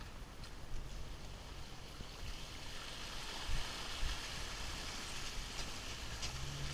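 Jeep Wrangler engine running at a slow crawl as its tyres push through shallow creek water, the splashing swelling in the middle. Two sharp knocks from the Jeep jolting over the creek bed come about three and a half and four seconds in, the loudest moments.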